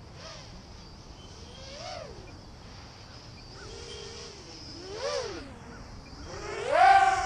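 FPV racing quadcopter's brushless motors and propellers whining, the pitch rising and falling with throttle in several swells, loudest as it passes close near the end.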